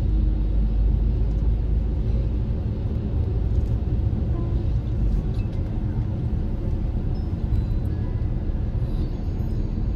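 Steady low rumble of a car on the move, engine and road noise heard from inside the cabin.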